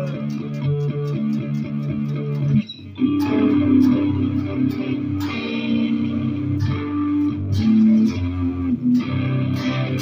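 Electric guitar strummed in a steady rhythm, ringing chords, with a brief break about three seconds in.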